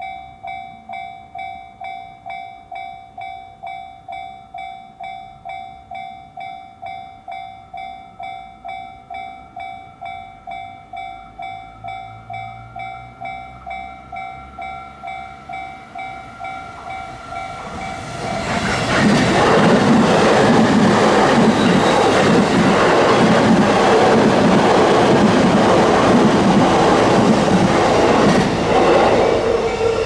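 Japanese level-crossing warning bell ringing, a steady electronic ding repeating about twice a second. About 18 seconds in, a train arrives and passes over the crossing with a loud rumbling rush that drowns out the bell, then eases off just before the end.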